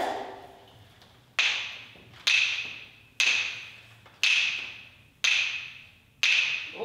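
Hand percussion instrument struck six times at a steady pace of about one stroke a second, each stroke ringing briefly with a bright, clear tone before it fades.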